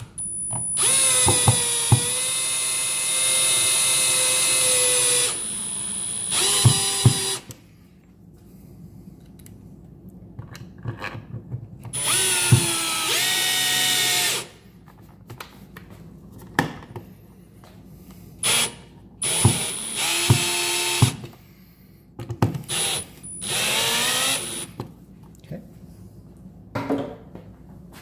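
Cordless drill/driver driving the mounting screws of a wall light switch into the electrical box: the motor whines in several runs of one to five seconds, with short blips of the trigger in between.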